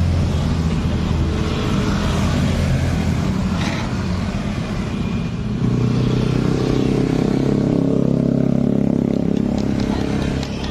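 A steady machine hum, like an engine running, that steps up in pitch and gets louder about five and a half seconds in.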